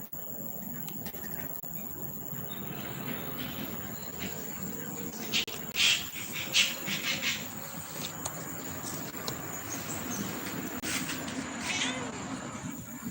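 A cat vocalizing, with a few short loud calls about five to seven seconds in and softer ones later, over a steady background hum.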